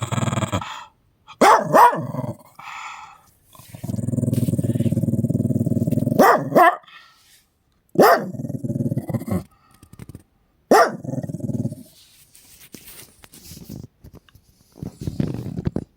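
Old dog growling and barking in irritation: a long low growl near the middle and about four sharp barks, each trailing off into a growl. The dog is being teased for a sock and, in the owner's words, gets angry.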